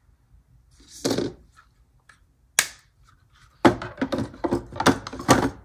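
A paper punch being knocked and handled to empty the paper scraps stuck inside it: a brief rustle, one sharp click, then a quick run of six or seven hard knocks near the end.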